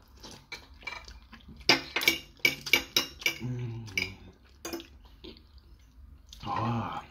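Close-up eating sounds of creamy spaghetti being slurped and chewed: a quick run of wet mouth clicks and smacks mixed with the fork clinking against the plate, and a hummed "mmm" of enjoyment near the end.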